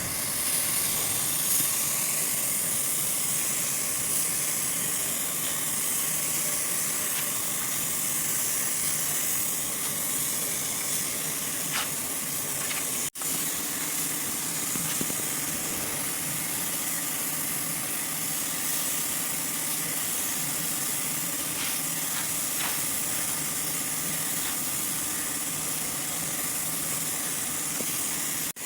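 Steady hiss of a spray nozzle, strongest in the high range, broken by one brief dropout about halfway through.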